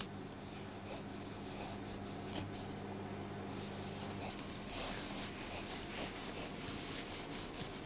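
Faint scratching of a hand writing on a large sheet of paper, the strokes clearer from about five seconds in, over a steady low hum.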